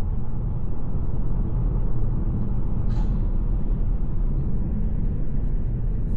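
VW T-Roc driving, a steady low rumble of engine and road noise, with one brief click about three seconds in.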